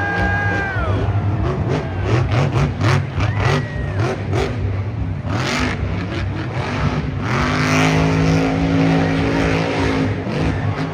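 Grave Digger monster truck's engine revving hard, its pitch rising and falling with the throttle through jumps and landings. Sharp cracks come in the middle, and near the end the engine is held at a steady high pitch for a couple of seconds.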